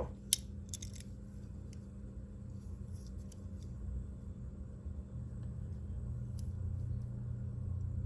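A single sharp metallic click from a small steel-and-aluminium frame-lock folding knife about a third of a second in, then a few faint ticks and handling sounds as it is turned in the hands, over a steady low hum.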